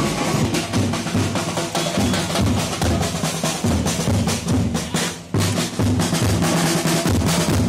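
Drum-driven music with a quick, even beat of drum strikes, which drops away briefly about five seconds in and comes straight back.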